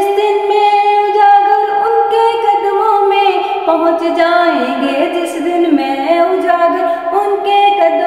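A woman singing a naat solo and unaccompanied, drawing out long held notes that slide and waver in pitch.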